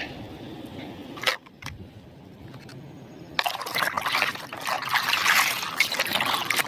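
A couple of light knocks, then from about three and a half seconds in, water splashing and trickling over a plastic toy truck as it is rinsed of mud.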